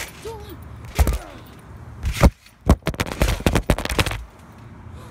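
Phone microphone being knocked and rubbed as the phone is swung about: a sharp knock about a second in, two more around the middle, then a rapid run of knocks and scraping that is the loudest part.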